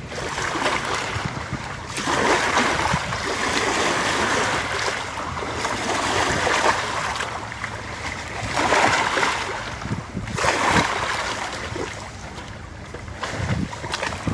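Small waves lapping against the lakeshore, washing in and fading away every couple of seconds.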